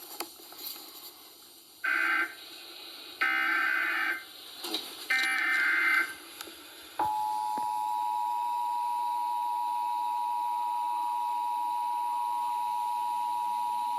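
Emergency Alert System test signal: three short bursts of warbling digital data tones (the SAME header), then, about halfway in, the EAS attention signal, a steady two-tone beep that holds to the end.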